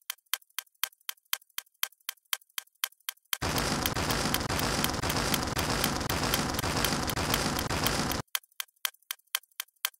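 Curd chillies sizzling in hot oil, a steady hiss that cuts off abruptly at the start, comes back a little over three seconds in and cuts off again about eight seconds in. A steady ticking, about four ticks a second, runs underneath throughout.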